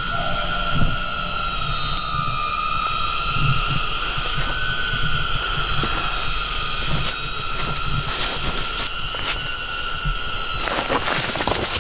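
Falling rain with a steady, high-pitched drone laid over it, and a louder rush of noise near the end.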